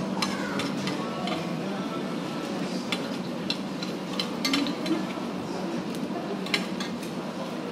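Restaurant dining-room ambience: background music and a murmur of voices, with scattered sharp clinks of cutlery and dishes.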